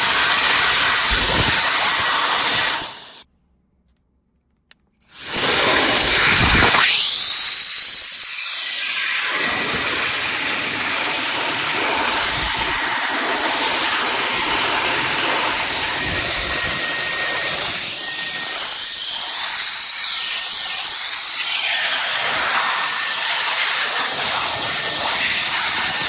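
CCV cordless electric air duster, a 150,000 RPM fan blower, blowing a loud steady rush of air with a faint high motor whine. It cuts off after about three seconds and starts again about two seconds later.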